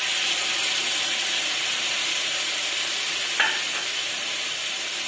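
Chana water poured into hot oil and fried masala in an iron kadhai, setting off a steady sizzling hiss. There is a single click about three and a half seconds in.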